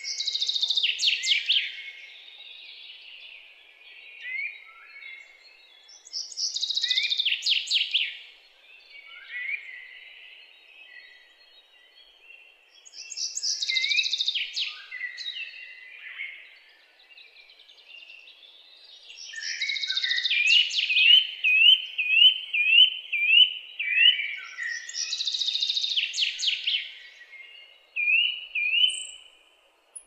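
A songbird singing, repeating a loud phrase about every six seconds, a rapid run of notes sweeping down in pitch, with softer chirps in between. Midway a quick series of about seven short rising whistled notes.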